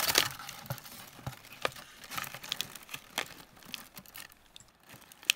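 Honeycomb kraft-paper packing and a plastic anti-static bag rustling and crinkling as they are handled, with scattered sharp crackles. The sound is busiest at the start and thins out.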